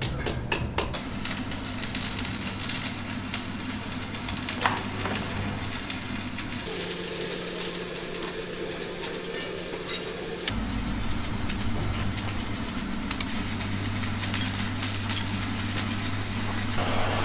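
A steady, low machine hum, whose pitch shifts about seven seconds in and drops back to a deeper rumble about ten seconds in, with a few light scraping clicks in the first second.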